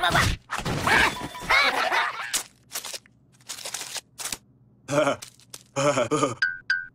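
Wordless cartoon voices: the cockroaches laughing and jeering, then a cartoon cat crying out in alarm near the end. A few short sharp clicks fall in the gap between them, and two short high beeps come just before the end.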